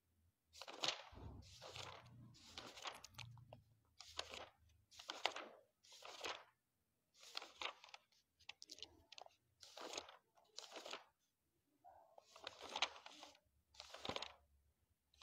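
Faint rustling of paper book pages being turned one after another, a dozen or so short rustles at roughly one a second, with a brief pause a little before the end.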